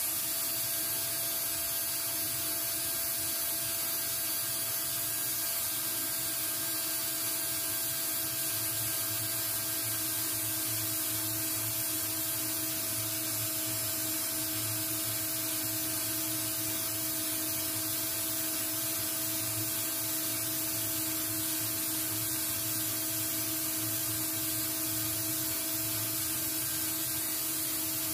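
Steady hiss with a constant hum of several fixed tones, even throughout, with no audible rhythm of sanding strokes.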